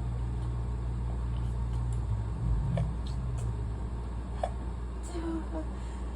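Steady low hum of background noise, with a soft low thump about two and a half seconds in and a few faint ticks.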